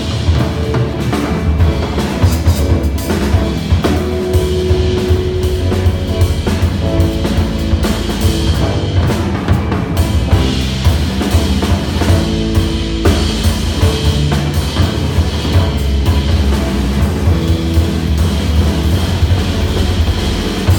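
Drum solo on a Gretsch drum kit: fast, dense strokes on the toms and snare, with bass drum and ringing cymbals, the drum notes changing pitch as he moves around the kit.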